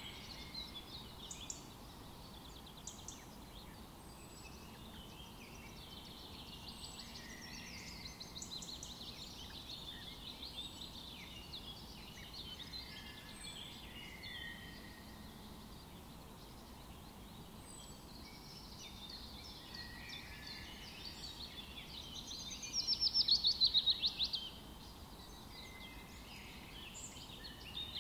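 Small birds chirping and warbling in the background, with one louder rapid trill lasting about two seconds near the end.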